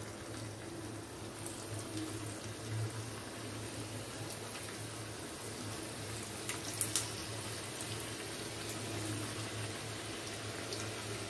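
Potato masala dough rounds sizzling in hot oil in a shallow non-stick frying pan, a steady bubbling hiss as more pieces are added, over a low steady hum. A couple of light clicks come about seven seconds in.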